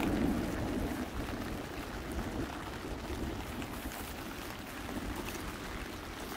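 Wind rumbling on the microphone over a steady outdoor hiss, a little louder in the first second.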